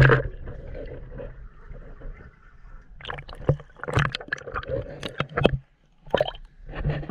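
Muffled underwater swimming sound, then from about three seconds in, water splashing and slapping against the camera as it breaks the surface of the pool and bobs at the waterline.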